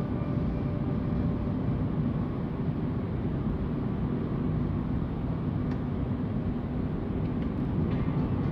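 Car cabin noise while driving: a steady low rumble of tyres on the road and the engine.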